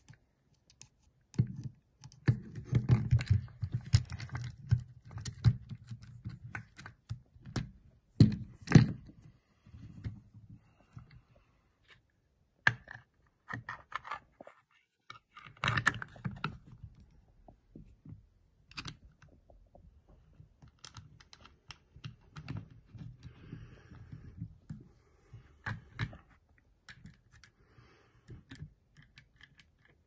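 Steel saw chain clicking and rattling as it is handled and seated link by link around the guide bar of a BU-KO multitool pole-saw attachment, with irregular knocks and clicks throughout.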